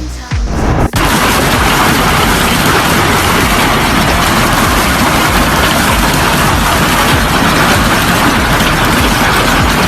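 Loud, steady rushing noise with a low rumble underneath, cutting in suddenly about a second in.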